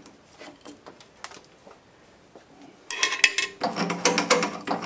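Handling of a steel plate on a wooden block: a few light clicks, then about three seconds in a sharp metallic clatter followed by a second or so of clinking and scraping as the plate is moved and set down.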